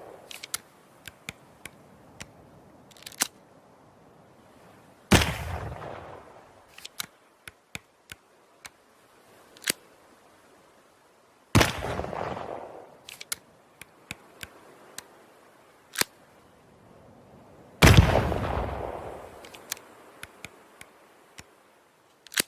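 Flintlock pistol firing three loud shots about six seconds apart, each dying away in a long fading echo. Short, faint clicks come between the shots, and a sharp crack comes right at the end.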